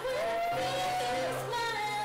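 A song playing, with a high voice, a woman's by its pitch, singing long held notes that slide between pitches over a steady bass note.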